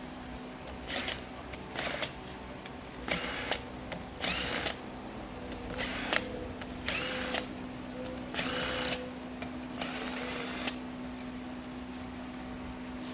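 Hand cleaning on a bare engine block: a series of short, noisy strokes about a second apart, over a steady hum.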